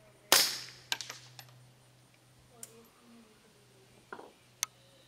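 Suppressed Remington Nylon 66 .22 LR rifle firing one subsonic round: a single sharp crack with a short decaying tail about a third of a second in. A few fainter clicks follow about a second in, and another sharp click comes near the end.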